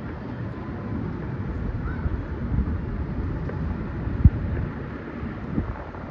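Wind buffeting the microphone over a low outdoor city rumble, with one short thump a little past four seconds in.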